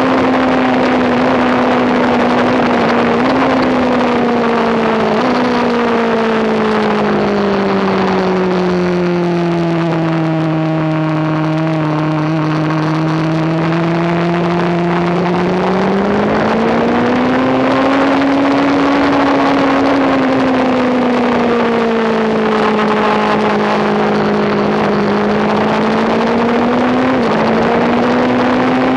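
Sport motorcycle engine running at speed on a race track, heard on board over a steady rush of wind. The engine note sinks slowly through a long turn, then climbs again as the bike accelerates out. A few times the pitch jumps suddenly.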